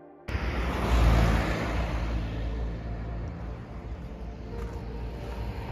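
Motorcycle engine running as the bike rides along, with wind rushing over the microphone. The sound cuts in abruptly as soft music stops, is loudest about a second in, then eases a little.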